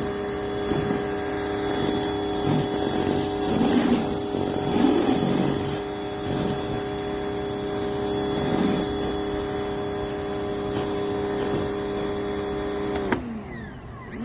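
Greenworks 1800 psi electric pressure washer running steadily, with water spraying through the spinning surface cleaner in repeated surges. Near the end the motor winds down, falling in pitch as the trigger is released, then starts up again.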